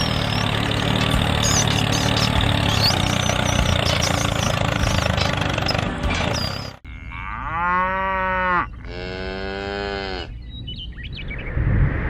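A steady motor rumble with high chirping squeaks over it, which cuts off suddenly about seven seconds in. Then a cow moos twice, two long calls back to back.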